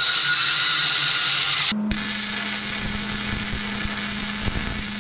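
An angle grinder grinds a steel horn-mounting bracket for about the first second and a half. It cuts off abruptly, and then an electric welder's arc crackles and hisses over a steady low hum.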